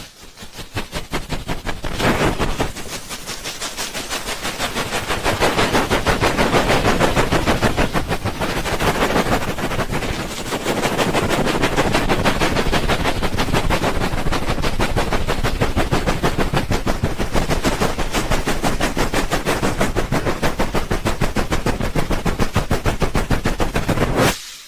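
ASMR 'helicopter' ear-rubbing trigger: hands rubbing over the microphone's ears in quick, even strokes, making a rapid chopping pulse like rotor blades. It is softer for a few seconds near the start, then louder and steady.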